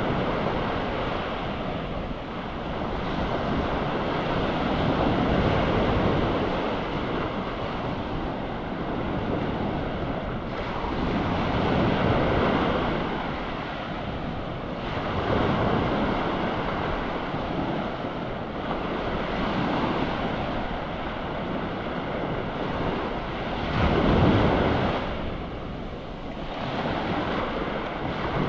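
Sea waves breaking on a beach, the surf swelling and falling back every few seconds, with the loudest wave near the end. Wind buffets the microphone.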